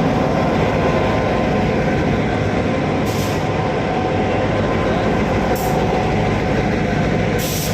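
Steady, loud rumble of a train, with three brief high hisses about three, five and a half, and seven and a half seconds in.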